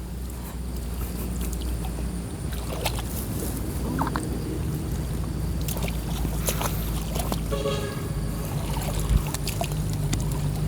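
Steady low hum of a small motor running, getting slightly louder toward the end, with a few faint knocks.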